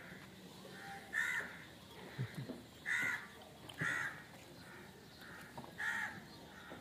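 Birds calling repeatedly in short calls, several loud ones with fainter calls answering between them.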